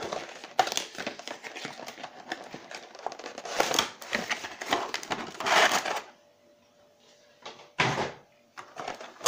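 Cardboard packaging being opened and a clear plastic blister tray slid out of it: scraping, rustling and clicking of card and thin plastic for about six seconds. Near the end a single knock as the tray is set down.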